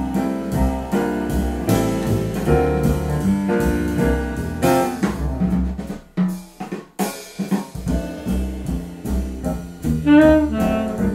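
Jazz band playing: drum kit and tenor saxophone over piano and double bass. The music thins out briefly about six seconds in, then picks up again.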